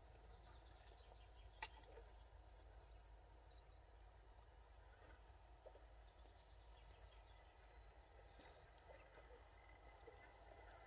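Near silence: faint outdoor background with a low steady rumble and a few scattered soft clicks, one sharper click about a second and a half in.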